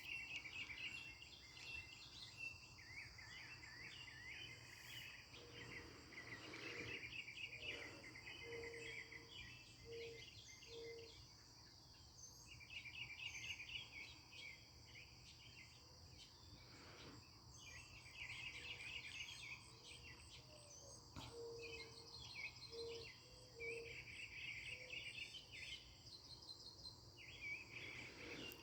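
Northern mockingbird singing faintly: runs of rapid, varied chirping phrases a few seconds long with short gaps between, mimicking the calls of other birds, over a steady high insect drone. Twice a short series of low hooting notes.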